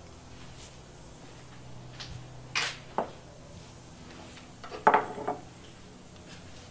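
Kitchen utensils knocking and clattering against a cooking pan: a couple of single knocks about two and a half and three seconds in, then a short burst of clatter around five seconds in.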